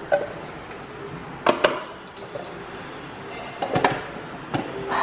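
A few sharp plastic clicks and knocks as a food processor's lid and feed-tube pusher are handled and fitted onto the bowl of flour. The loudest come about a second and a half in and again near four seconds; the motor is not running.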